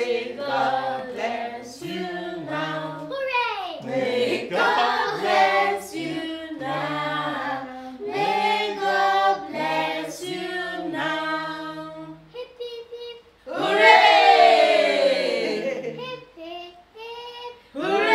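A family group of adults and children singing a birthday song together without accompaniment. Near the end comes a loud, long cheer that falls in pitch, and a second one starts just as the clip ends.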